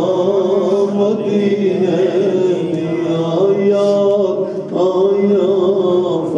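A man's voice chanting a devotional recitation over a microphone, in long held, wavering notes, with a short pause for breath about four and a half seconds in.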